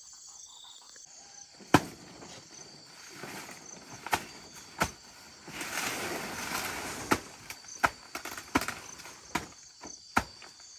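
A series of sharp, separate knocks, about nine of them at uneven intervals, with a rustling swell around the middle and crickets chirring steadily behind.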